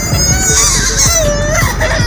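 A woman crying out and whimpering in pain in short wavering cries, over steady background music.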